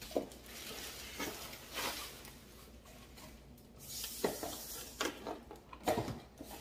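Plastic packaging bag crinkling and rustling as a wrapped item is handled and lifted out of its box, with a few sharp knocks of the box and packaging.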